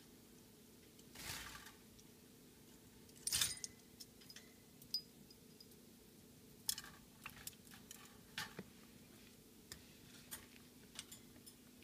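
Black-capped lory moving about its metal wire cage: scattered light clicks and clinks of beak and claws on the bars and hanging toys, with a short rustle about a second in and a sharper ringing clink about three and a half seconds in.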